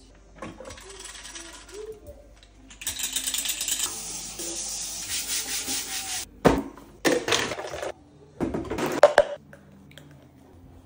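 Household handling sounds in quick succession: faint rustling at first, then a baking tray scrubbed with a brush under a running kitchen tap for about three seconds, then several sharp knocks and clatters.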